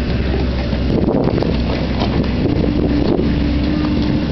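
Hyundai Robex 140-9 excavator's diesel engine running steadily under load as the bucket digs into the soil. A steady whine joins a little past halfway. Wind buffets the microphone.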